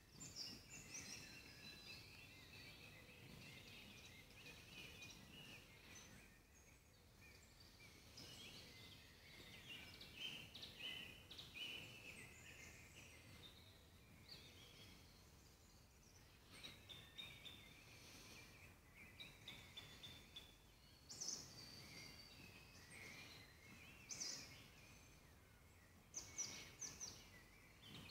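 Faint woodland birdsong: several small birds singing and calling in short chirps and trills, a few notes louder in the second half, over a quiet background hiss.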